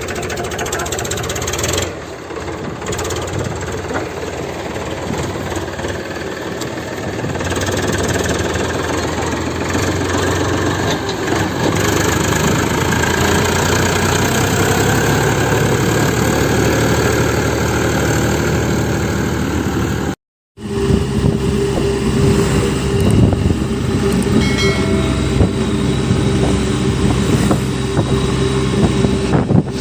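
Small motor of a homemade mini tractor model running continuously. It cuts out for a moment about two-thirds of the way through, then resumes as a steadier hum.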